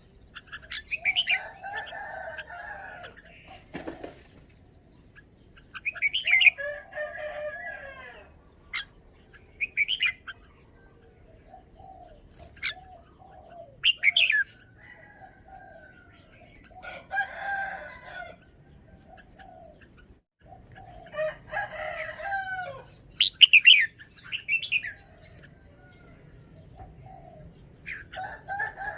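Red-whiskered bulbul singing in short phrases a few seconds apart, with a brief rustling knock about four seconds in.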